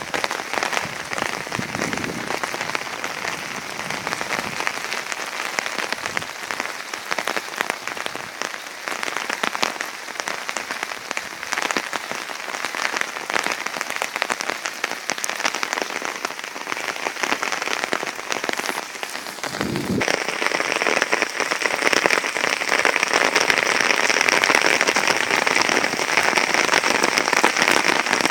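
Steady rain falling, a dense patter of countless drops on a surface. It grows louder and hissier about two-thirds of the way through.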